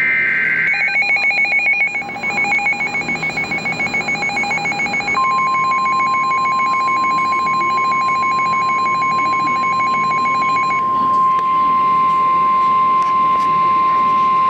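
NOAA Weather Radio emergency alert: a digital data burst ends within the first second. A rapidly pulsing electronic alarm beep follows, and about five seconds in the steady 1050 Hz warning alarm tone joins it. The beeping stops near eleven seconds and the steady tone continues alone.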